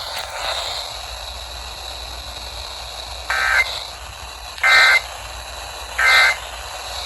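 Three short bursts of EAS digital data tones, the end-of-message signal that closes an emergency alert, about a second and a half apart over a steady hiss of radio static.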